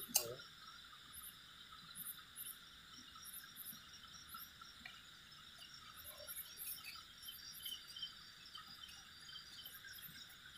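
Crickets chirping in a night-time insect chorus: quick repeated high trills over a steady high buzz. One sharp click sounds just after the start.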